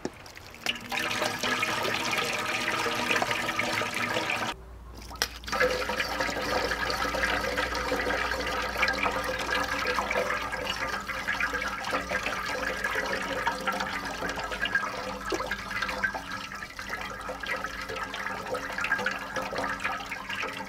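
Grape juice streaming and splashing from a stainless steel colander into a large aluminium pot of juice as the pulp is strained, over a steady hum. The sound dips briefly about four and a half seconds in.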